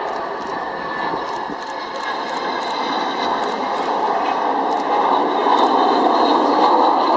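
Avro Vulcan's four Olympus turbojets passing overhead: a steady jet rush with a faint high whine over it, swelling louder in the second half.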